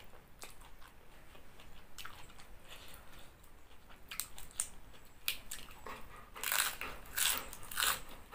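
Close-up eating sounds: chewing a mouthful of noodles with small wet clicks, then crisp crunching bites of a fresh lettuce leaf in the last couple of seconds.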